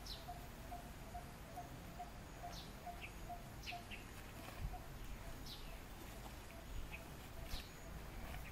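Forest ambience of birds calling: short high calls that fall in pitch every second or so, with a few brief chirps, over a low note repeated steadily about three times a second.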